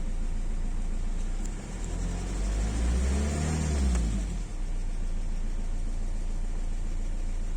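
Renault Laguna 1.9 dCi four-cylinder turbodiesel engine running, revved once about two seconds in, its pitch rising and falling back to idle by around four and a half seconds. The owner hears a strange noise from the intake, and the engine shakes at idle when cold.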